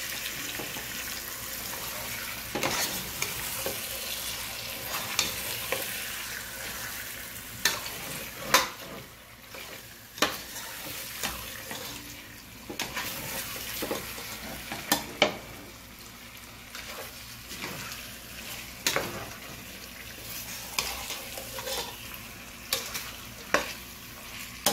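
Chicken pieces frying and sizzling with masala in a steel pot while a long-handled spoon stirs them, knocking and scraping against the pot at irregular moments.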